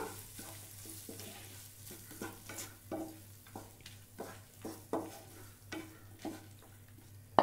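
Wooden spatula stirring and turning cooked rice in a nonstick frying pan: a run of irregular light scrapes and taps against the pan, with a sharper knock near the end.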